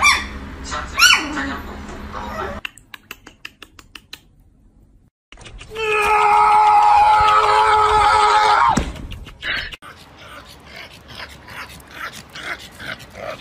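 A small dog's short pitched yelps, then scattered light clicks. A loud, steady held tone follows for about three seconds and ends in a falling slide, then more light clicking.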